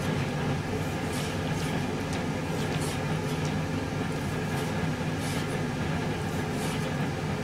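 A steady low machine hum runs throughout. Over it come a few light, scattered knife strokes against a wooden cutting board as raw salmon is sliced for sashimi.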